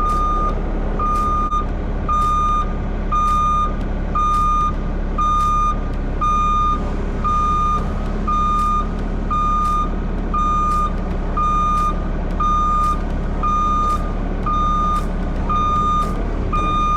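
Backup alarm beeping steadily, about once a second, over a diesel engine running.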